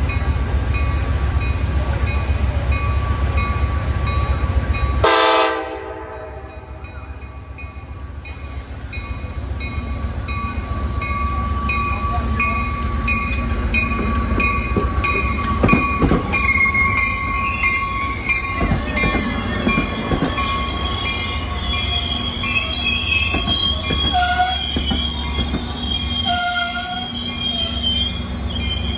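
Trinity Railway Express commuter train of Bombardier bilevel cars pulling into a platform. A low rumble cuts off abruptly about five seconds in. Then a steady high tone and squealing wheels and brakes are heard as the train slows, with two short horn toots near the end.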